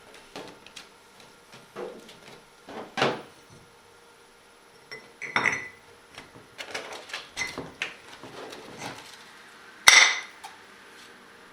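Scattered metal clinks and knocks of tools and parts being handled while the grinding segments of a profile grinding wheel are changed. Two of the strikes ring briefly, about five and ten seconds in, and the second is the loudest.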